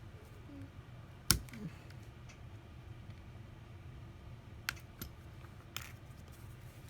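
A few sharp clicks and taps of small tools against a phone, one loud about a second in and two fainter ones later, over a low steady hum.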